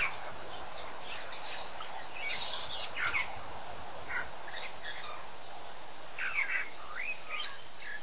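Birds calling in short, scattered chirps and squawks, some sweeping up or down in pitch, with a cluster about three seconds in and another near the end, over a steady background hiss.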